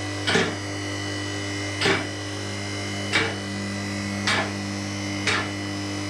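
Hydraulic car lift's electric pump motor humming steadily as the lift rises, with the safety locks clicking over their stops about once a second, six times.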